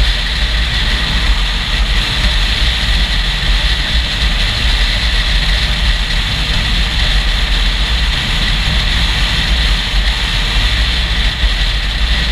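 A motorcycle under way, heard from a GoPro: steady wind rushing over the microphone, with a deep buffeting rumble, mixed with engine and road noise. The noise holds level with no gear changes or separate knocks.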